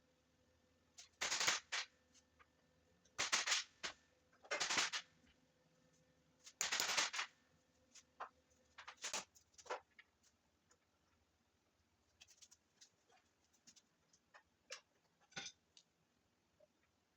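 Hand-tool work on a truck frame: four short bursts of rapid metallic clicking and clattering in the first seven seconds, then scattered lighter clicks and taps.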